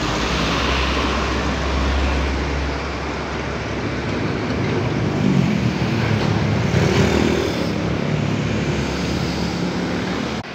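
Street traffic noise: a steady rumble of passing vehicles, louder around the middle.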